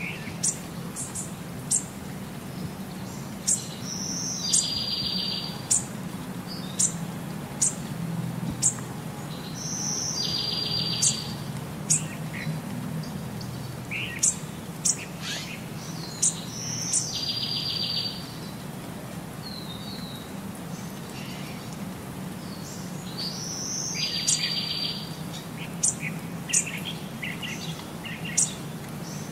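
Birdsong: sharp high chirps and a short buzzy trill, recurring in the same pattern about every six and a half seconds as a repeating loop, over a low steady hum.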